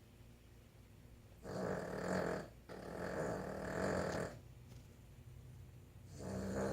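A Boston Terrier snoring in its sleep. There are two long snores back to back from about a second and a half in, and a third near the end, with quiet between.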